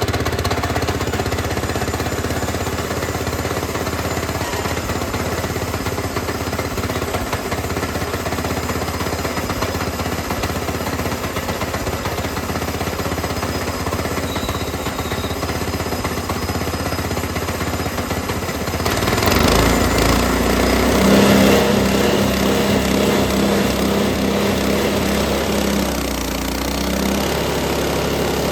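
Frontier OS18 portable bandsaw mill running, engine and spinning band blade, while it makes a flattening cut along a walnut branch. About two-thirds of the way through it grows louder and fuller, with a steady low hum for a few seconds.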